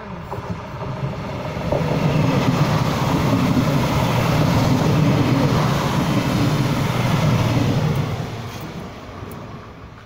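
DB class 648 (Alstom Coradia LINT) diesel multiple unit passing close by: its underfloor diesel engines drone low together with wheel and rail noise, growing loud as it comes level and fading away after about eight seconds.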